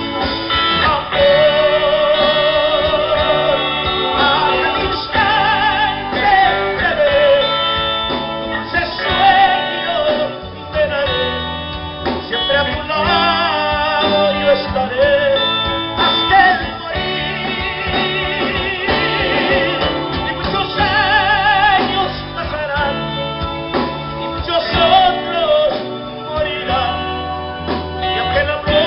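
A band of guitar, keyboard, bass and drums playing a slow love song, with a wavering melody line over a steady bass.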